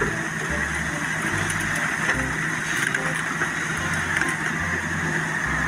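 SANY wheeled excavator's diesel engine running steadily as the machine works its bucket.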